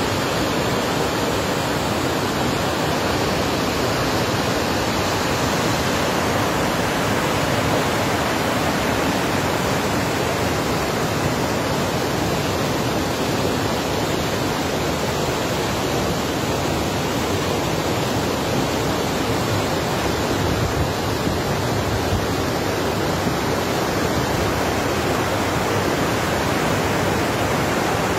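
Steady rush of river water, an even noise with no break or change.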